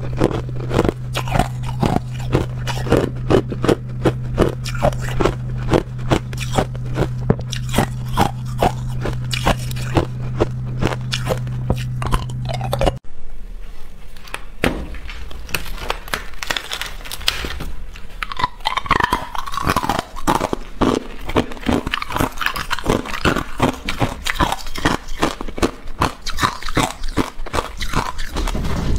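Ice cubes being bitten and crunched between the teeth, a rapid, continuous run of sharp crunches. A steady low hum sits under the crunching and stops abruptly about halfway through.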